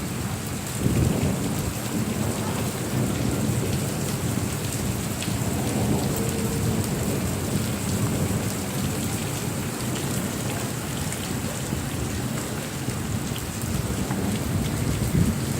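Heavy rain falling steadily, with rolling thunder rumbling underneath and a swell of rumble about a second in.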